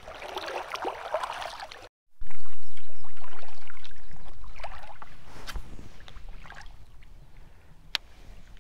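Shallow river water rippling over a riffle. After a sudden cut, a loud low rumble starts abruptly and fades away over several seconds, with a single sharp click near the end.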